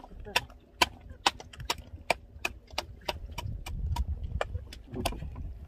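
Quick regular knocking, about two to three sharp knocks a second, over a steady low rumble.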